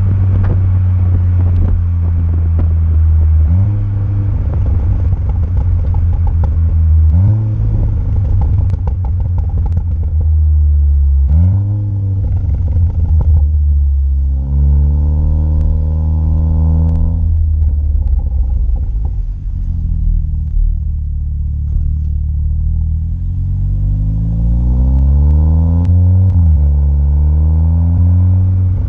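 Exhaust note of a VW Golf 7 GTI Clubsport's turbocharged 2.0-litre four-cylinder through a Friedrich Motorsport 76 mm cat-back system, heard close to the tailpipes while driving. The engine drones low, its pitch jumping up and falling back several times, then climbing steadily under acceleration before dropping near the end, with a few sharp pops in between.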